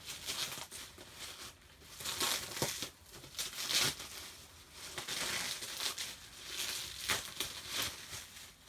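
Packaging being unwrapped by hand, with irregular crinkling and crumpling as it is pulled away from a carded action figure.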